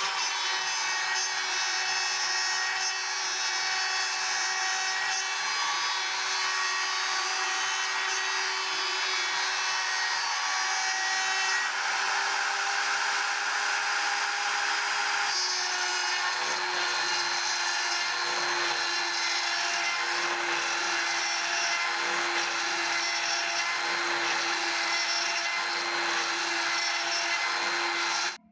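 The 550-watt DCA router spindle of a 3040 CNC router running at high speed and cutting. It makes a steady whine over a rough cutting noise, and its pitch drops a little about halfway through.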